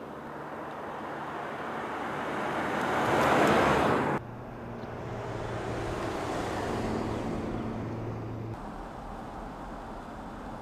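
Mercedes S 400 Hybrid sedan driving past: a rushing tyre and wind noise swells as it nears and stops abruptly about four seconds in. A second, softer pass builds and drops away suddenly a little after eight seconds.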